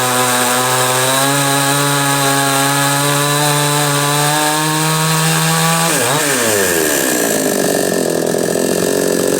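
Ported Chinese 45cc two-stroke chainsaw on new piston rings, running at high revs with its pitch creeping slowly upward. About six seconds in the revs drop sharply and the sound turns lower and rougher.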